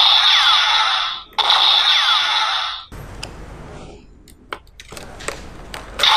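Electronic sound effects from a Kamen Rider Diend Driver toy gun: two loud bursts of about a second and a half each, with gliding tones, followed by quieter clicks of the toy being handled.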